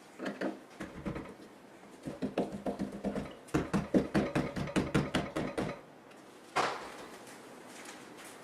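A quick run of sharp knocks and clicks, several a second, then a single louder thump near the end.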